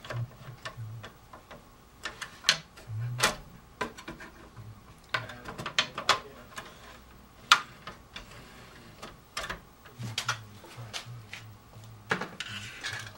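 Scattered plastic clicks, knocks and rubbing from the MicroMega Stage CD player's disc drawer as it is slid back into the open chassis by hand.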